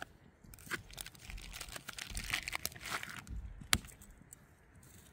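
Plastic sausage packaging crinkling and tearing as it is opened by hand, in irregular rustles with one sharp click about three-quarters of the way through.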